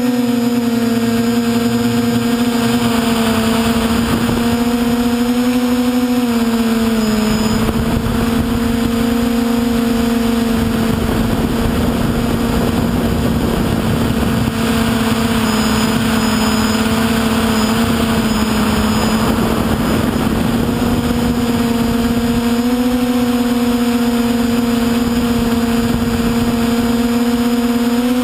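Motor and propellers of a radio-controlled FPV aircraft running steadily as a loud, constant buzzing whine, its pitch dipping slightly about a quarter of the way in and rising again near the end as the throttle changes, with wind rumble on the onboard microphone.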